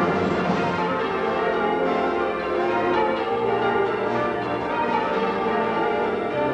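Church bells ringing changes: a continuous peal of many overlapping bell tones.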